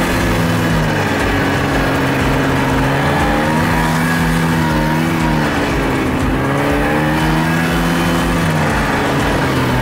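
Snowmobile engine running under way along a groomed trail, its pitch rising and falling several times as the throttle is opened and eased, over a steady rushing noise.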